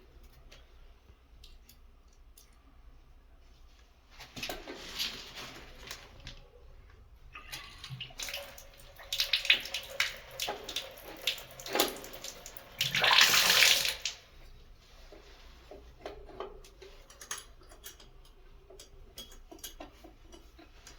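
Water running and splashing in several bursts, the loudest a short steady rush about thirteen seconds in, with small knocks and clicks between.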